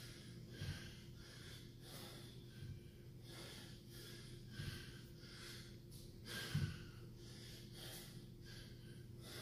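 A man breathing hard and fast through a set of dumbbell snatches, about two breaths a second, with a louder low thud about every two seconds.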